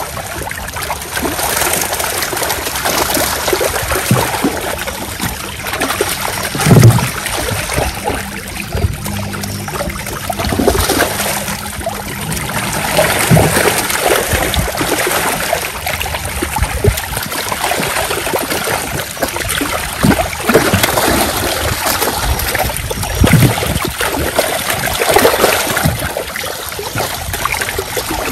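Many netted fish thrashing and splashing in shallow muddy water: a continuous churning splash with scattered sharper splashes, the loudest about seven seconds in.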